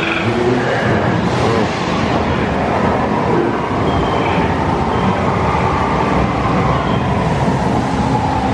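Steady rushing ambient noise inside a boat dark ride, the water and the ride's effects blending into one loud, even din in the enclosed ride building.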